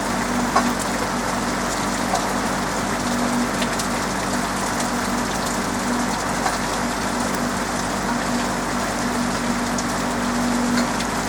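Steady rain falling on a roof, an even hiss with scattered individual drops ticking, over a steady low hum.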